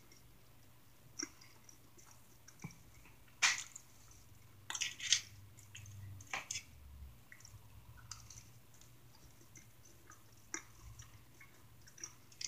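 Close-miked chewing and wet mouth sounds of someone eating pizza, with scattered small clicks and a few sharper smacks about three and a half, five and six seconds in.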